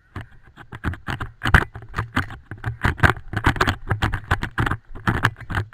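Rapid, irregular clatter of knocks and rustles close to a helmet-mounted microphone.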